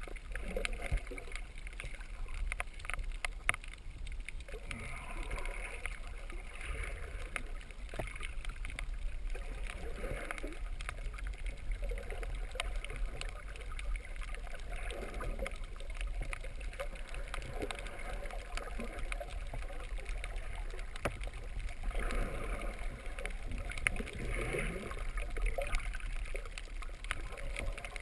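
Muffled underwater sound picked up by a GoPro in its waterproof housing: a steady low rumble of moving water, with bubbling and gurgling that swells every few seconds.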